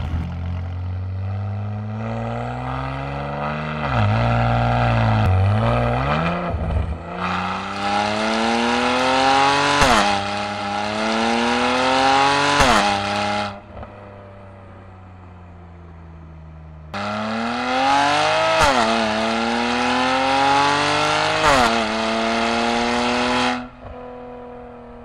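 Turbocharged straight-six engine of a BMW E93 335i running through a catless downpipe and valved aftermarket exhaust, with the valves open. It revs hard, its pitch climbing and dropping sharply at upshifts about ten and twelve and a half seconds in. It settles to quieter cruising, then makes a second loud pull that cuts off suddenly near the end.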